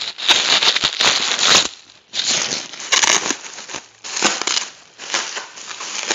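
Foam packing peanuts and plastic wrapping rustling and crinkling in a cardboard box as hands dig an item out, in repeated short bursts.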